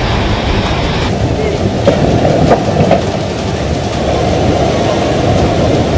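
Dense, steady rushing of storm wind and surging floodwater. About a second in the sound changes abruptly, losing its hiss, and a few sharp knocks come between two and three seconds in.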